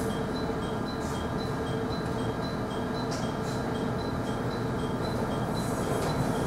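Steady cabin hum inside a local train, with a faint high pip repeating about twice a second; it grows a little louder near the end.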